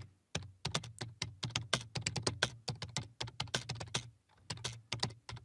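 Typing on a computer keyboard: a quick run of keystrokes, with a brief pause a little after four seconds in.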